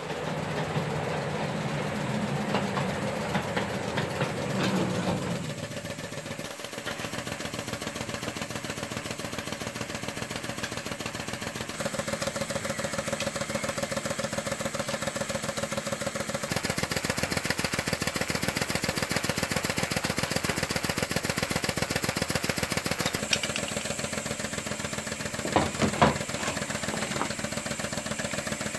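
A small engine idling with a fast, even beat, its sound stepping up about twelve seconds in; a couple of sharp knocks near the end.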